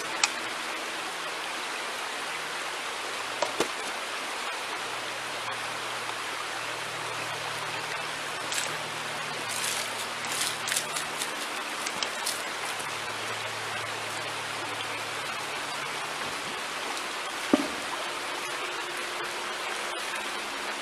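Shallow rocky creek running with a steady rush of water. Over it come a few sharp knocks and a short burst of clatter from gold-panning gear being handled, with the loudest knock near the end.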